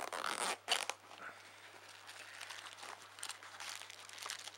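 Rustling of a fabric kit pouch and crinkling of plastic bags as a hand rummages among wrapped items: two louder rustles in the first second, then soft, steady crinkling.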